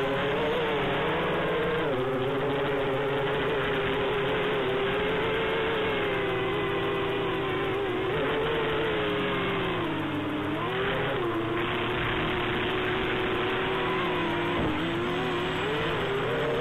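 Quadcopter's electric motors and propellers buzzing steadily in flight, the pitch wavering with the throttle and sagging briefly about ten seconds in and again a few seconds later.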